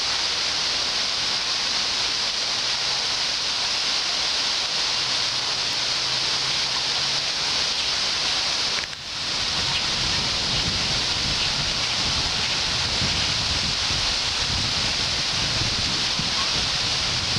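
Steady, high-pitched hiss of outdoor background noise. It breaks off for a moment about nine seconds in, and after that wind rumbles on the microphone.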